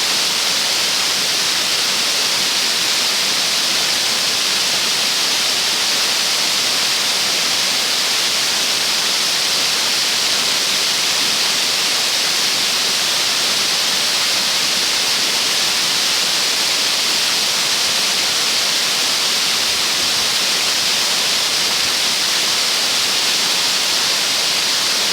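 Waterfall: falling water rushing as a loud, steady hiss that does not change.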